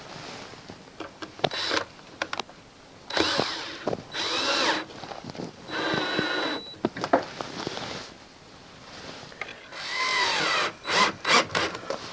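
Cordless drill-driver driving screws in: several short runs of the motor, its whine rising and falling in pitch, with clicks and knocks of handling in between.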